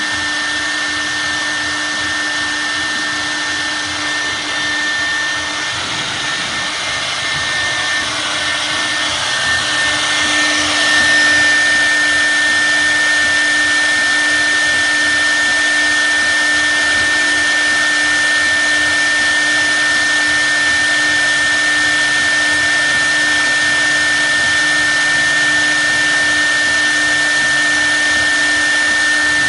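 CIMTECH 1325R CNC wood router's spindle running with a steady high whine as its cutter carves a log turning on the rotary axis. The whine and cutting noise grow louder about eleven seconds in and then hold steady.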